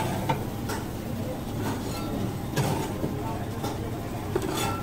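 Busy street-stall ambience: a steady rumble of traffic and background voices, with scattered clinks and knocks of food being handled.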